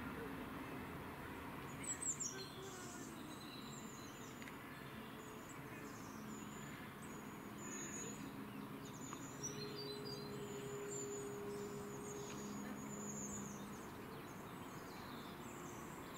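Small birds chirping and singing, faint: many short, high chirps and trills that begin about two seconds in and go on throughout.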